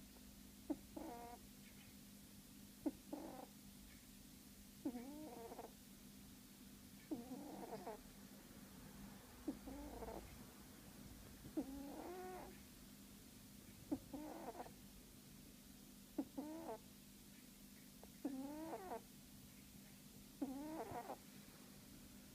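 Sleeping cat snoring, a short snore with each breath about every two seconds, over a steady low hum.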